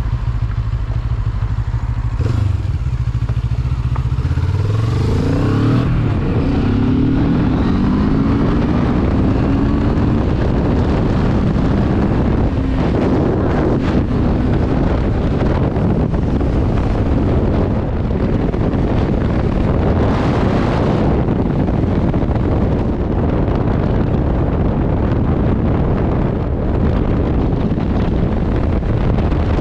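Benelli TRK 702's parallel-twin engine ticking over, then revving up as the motorcycle pulls away, its pitch climbing through the gears over the first several seconds. It then runs steadily at road speed, blended with a constant rush of wind and road noise.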